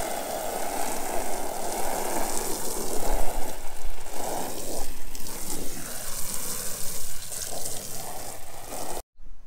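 A pressure-washer jet spraying and splattering across a dirty upholstered car bench seat, a steady rushing hiss with splashing that cuts off suddenly near the end.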